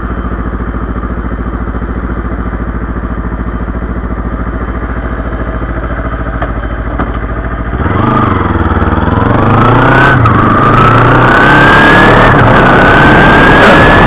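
Kawasaki Ninja 250R's parallel-twin engine idling steadily for about eight seconds, then pulling away: the revs climb, drop back at three gear changes and climb again. A rushing noise builds with speed.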